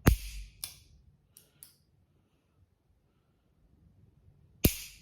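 Action of an empty early-1900s Spanish .32 S&W Long revolver being worked: a sharp metallic snap of the hammer falling at the start and another about four and a half seconds later, with a few lighter clicks of cocking and the cylinder turning in between.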